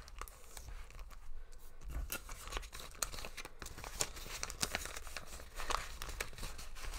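Clear plastic cash envelopes in a budget binder crinkling and rustling with a scatter of small clicks, as a paper bill is tucked into one and the envelopes are handled.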